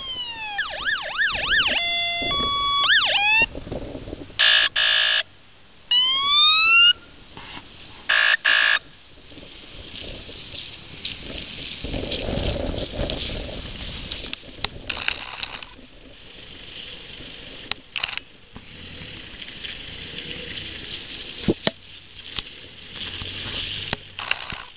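Electronic siren of a converted Ford Ranger 4x4 airfield fire truck cycling through its patterns over the first nine seconds or so: falling wails, fast yelps, a two-tone hi-lo and short horn blasts. The siren then stops and the pickup drives past, the sound of its engine and tyres on wet tarmac swelling about twelve seconds in and then fading.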